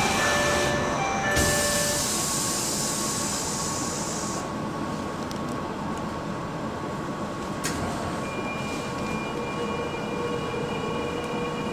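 Tokyo Metro Marunouchi Line train at its door close and departure: door-closing chime tones and a loud hiss over the first few seconds as the doors shut. A click about eight seconds in, then the steady whine of the traction motors, with a lower tone slowly rising as the train starts to pull away.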